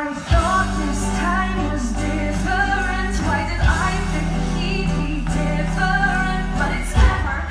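A woman sings a pop vocal riff, her voice running up and down in pitch over band music with a steady heavy bass and drum hits. The music comes in sharply at the start.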